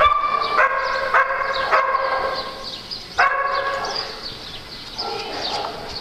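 Small dog giving high-pitched, drawn-out yelps, four back to back, then another about three seconds in and a fainter one near the end.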